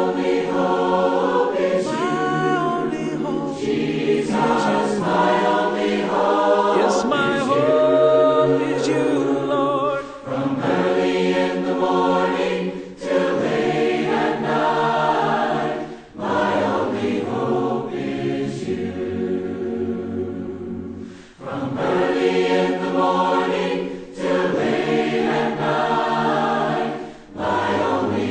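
A choir singing a gospel song in phrases of a few seconds each, with short breaks between them.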